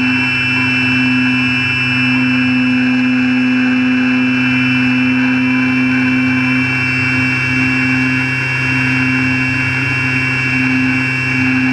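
RC airplane's motor and propeller running at a steady throttle, heard from the camera on board: a loud, even drone holding nearly one pitch, with a high whine over it and only slight dips in pitch now and then.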